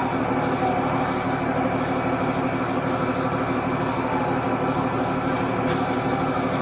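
A steady, unbroken mechanical drone with a low hum and a faint high whine above it, with a few faint falling tones.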